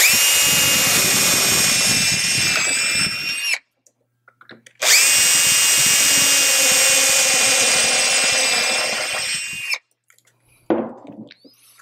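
Cordless drill boring two holes through a plastic saw adapter plate, in two steady runs of a few seconds each with a short pause between. The second run starts with a rising whine as the motor spins up. A few light clicks follow near the end.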